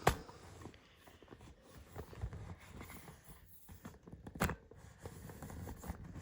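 Handling noise from a camera being moved and lowered by hand: faint rustles and scrapes, with a sharp click just after the start and another about four and a half seconds in.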